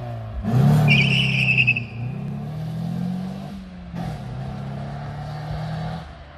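Opel Tigra's naturally aspirated 1.4 16V four-cylinder engine revving hard as the car accelerates away from standstill. The engine note climbs, drops and climbs again twice as it shifts up through the gears, then fades as the car recedes. A brief high-pitched squeal comes about a second in.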